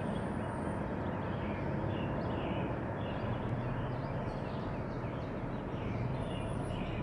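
Steady outdoor background noise, a low even rumble of the kind made by distant traffic or wind, with faint scattered bird chirps.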